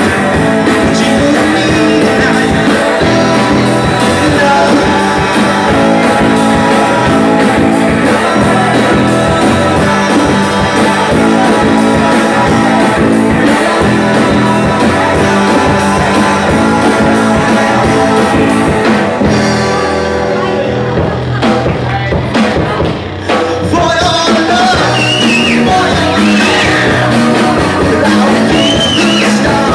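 Live rock band playing loud: electric guitar and drum kit with a male lead singer. The band thins out briefly about twenty seconds in, then comes back in full.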